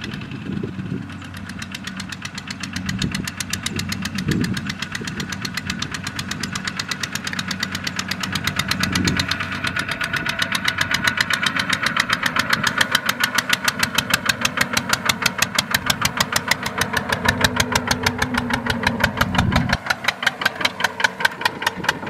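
Kubota RT120 power tiller's single-cylinder diesel engine running as it pulls a trailer carrying two riders, a rapid, even chugging beat that grows louder about ten seconds in.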